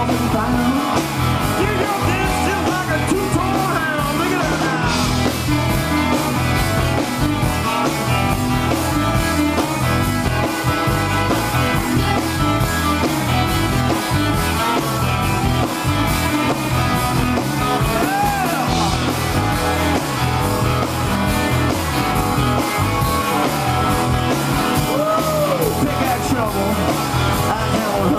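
A live rock-and-roll band playing a dance number: electric guitars, bass and drums at a steady beat.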